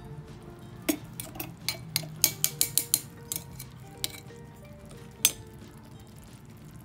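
A small metal spatula clinking and scraping against a miniature steel wok while stir-frying chopped octopus and onion: a quick run of sharp clinks between about one and three seconds in, then two more single ones. Soft background music underneath.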